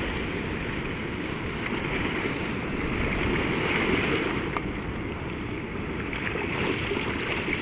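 Shallow surf washing and churning right around a microphone held at water level, with a Staffordshire bull terrier splashing through the foam. Wind buffets the microphone.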